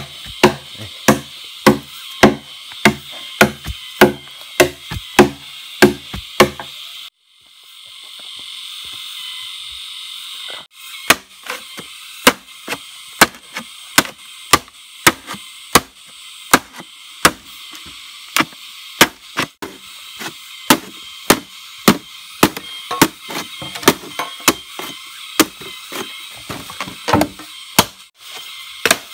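Repeated chopping of wood with a blade, about two strokes a second, the first strokes ringing with a hollow pitched tone. The strokes stop for a few seconds, leaving only a steady hiss, then start again.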